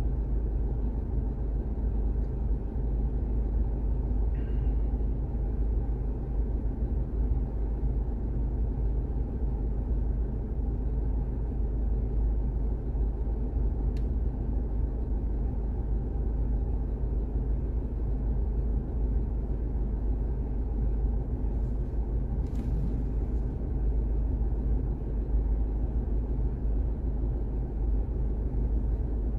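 A car driving on wet city streets: a steady low rumble of engine and tyre noise.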